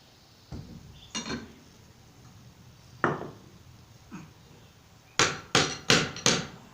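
Knocks and taps of a tool striking a stuck part of an old 6-volt generator to work it loose: a few scattered knocks, then four sharp, loud strikes in quick succession near the end.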